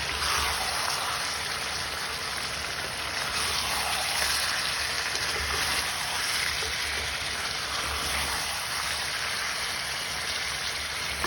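Chicken pieces frying in oil and spice masala in a pan over a high gas flame: a steady sizzling hiss as the meat is mixed in.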